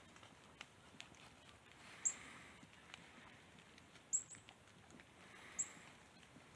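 Faint rustling and crackling of dry fallen leaves and twigs as a dog and a sheep move and forage through the leaf litter. A few short, very high-pitched chirps come every second or two.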